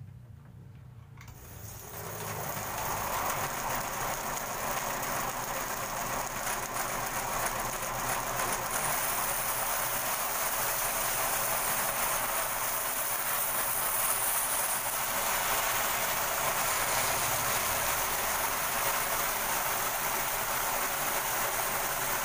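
Homemade bandsaw, converted from a circular saw, coming on about a second in and then running steadily as its blade rips along a thick wooden plank.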